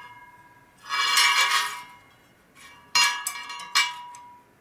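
Metal clinking and scraping against a laced chrome spoked motorcycle wheel on a truing stand, the rim and spokes ringing: a ringing scrape about a second in, then two sharp clinks about three-quarters of a second apart.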